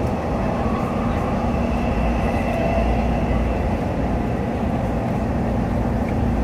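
Cabin noise inside an electric commuter train car: a steady, even rumble with a faint high whine above it.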